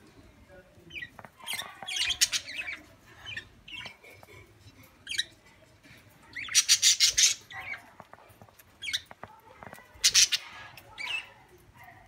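Pet budgerigars chirping and squawking in several short, loud bursts, with quieter chirps in between.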